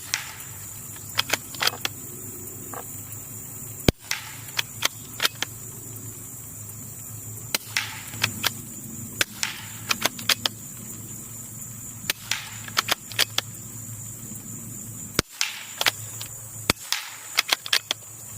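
Suppressed Ruger Precision Rimfire bolt-action .22 LR rifle firing 40-grain subsonic rounds, shot after shot. Each report is a short, sharp, super quiet crack, with quick clicks between shots as the bolt is worked.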